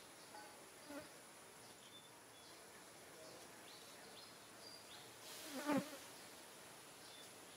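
A flying insect buzzes close past about five and a half seconds in, its hum sliding down in pitch as it goes by. A faint steady high tone continues underneath.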